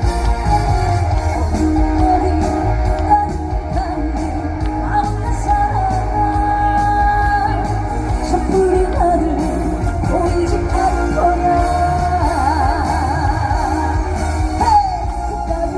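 Live trot song performed over a concert sound system: a singer's voice with heavy vibrato over a band backing with guitar.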